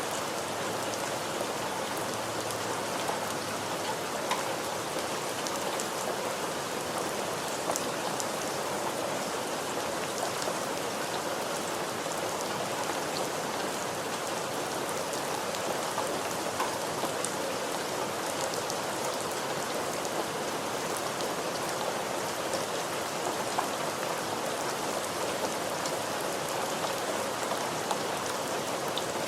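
Steady rain falling, a constant hiss with many small scattered drop ticks against a surface.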